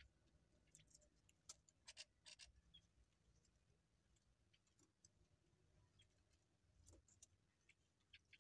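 Small birds pecking at pellet feed: faint, irregular ticks and taps, bunched in a few quick runs.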